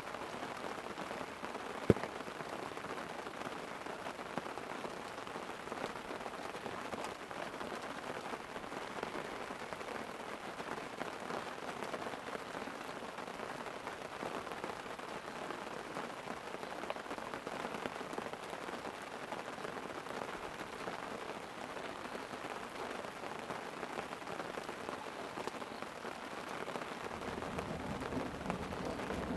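Light rain pattering steadily on a tent, with a single sharp pop about two seconds in. A low rumble of thunder starts building near the end.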